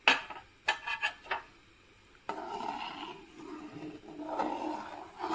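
Steel ladle in a large metal pan of thick rice kheer: a few short knocks against the pan, then a steady rough scraping and swishing as it stirs through the milk and rice.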